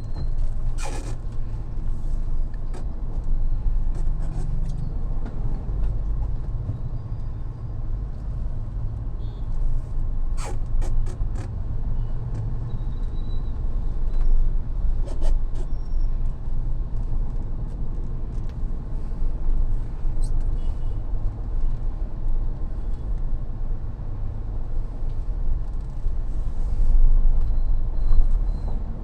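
Mahindra Thar driving in city traffic: a steady low rumble of engine and road, with a few short sharp knocks along the way.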